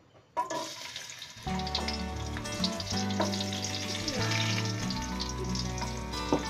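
Garlic pieces dropped into hot oil in a wok, sizzling as they fry. Background music with a steady beat comes in about a second and a half in.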